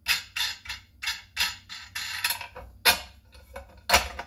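Cast iron tortilla press being taken apart by hand: a run of light metal clicks and knocks, about two or three a second, as its plates, hinge and bolts move against each other and the wooden board, with a louder knock near the end.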